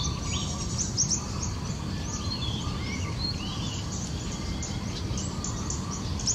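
Several small birds chirping in quick, high, short notes, some sweeping downward, over a steady low background rumble.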